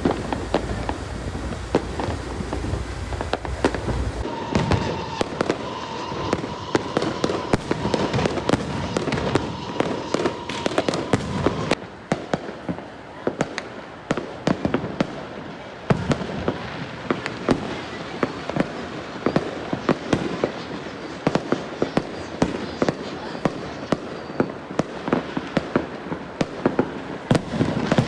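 Dense, continuous crackle of fireworks and firecrackers, many sharp bangs every second with louder reports scattered through. A steady whistling tone runs underneath for several seconds in the first half.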